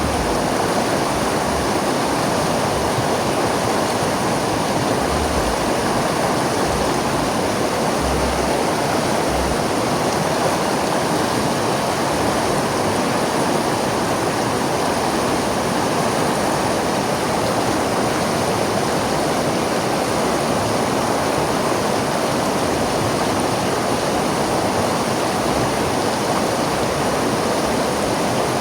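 A river flowing steadily: an even, unbroken rush of water.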